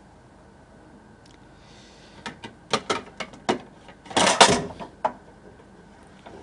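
Crockery clinking and knocking as a plate is taken out of a low kitchen shelf: a run of sharp clicks and clacks starting about two seconds in, with the loudest clatter a little after four seconds.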